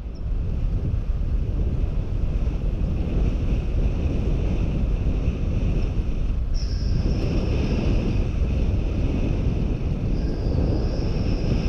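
Wind buffeting an action camera's microphone on a bicycle coasting fast downhill: a steady low rumble, with a thin high hiss that comes in about six and a half seconds in.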